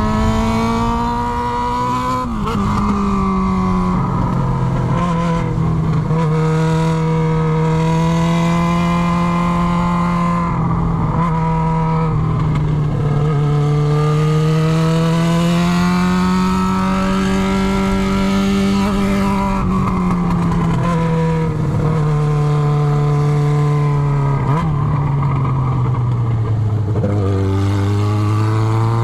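Yamaha XJ6 motorcycle's inline four-cylinder engine running on its bare exhaust pipe with the silencer tip removed, loud and raspy, under way. The engine note climbs and falls with the throttle, with a few sudden drops in pitch.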